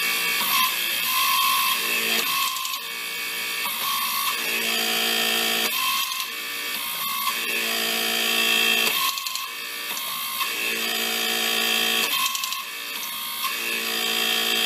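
Electric hydraulic pump driving a low-clearance hydraulic torque wrench, running continuously. Its note shifts every second or two in a repeating cycle as the wrench alternates between advance and retract strokes to ratchet the nut.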